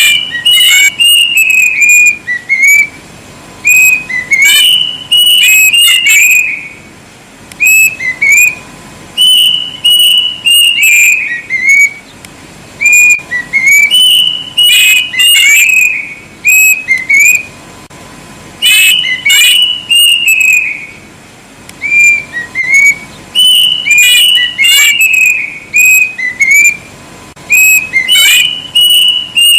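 Kedasih cuckoo singing loudly: phrases of clear whistled notes, each sliding down in pitch, come in runs of a few seconds separated by short pauses and repeat over and over. A faint steady hum lies underneath.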